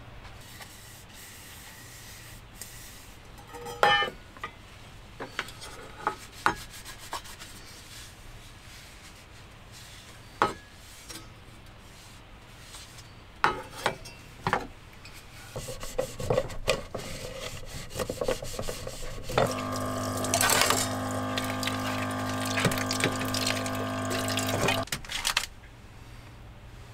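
Chopsticks and metal dishes clinking in scattered taps during a meal, then for about five seconds a steady humming drone with a rushing hiss over it that cuts off suddenly.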